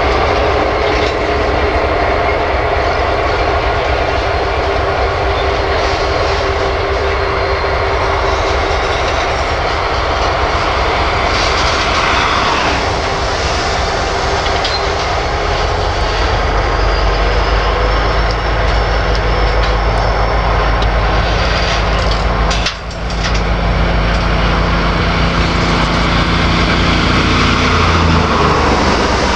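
Slow-moving Canadian Pacific freight train of tank cars rolling past, steel wheels rumbling steadily on the rails.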